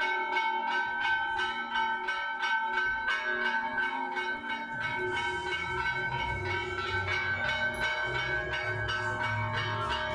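Bells ringing in a steady run of struck notes, about three a second, each note ringing on into the next. A low rumble joins underneath about five seconds in.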